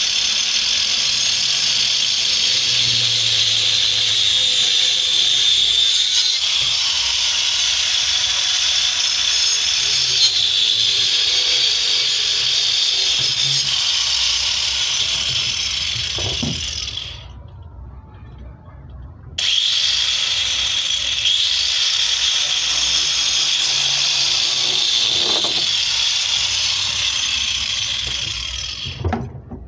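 An electric power tool working wood, running with a steady high whine. It winds down about two-thirds of the way through, starts again sharply a couple of seconds later, and winds down again at the end.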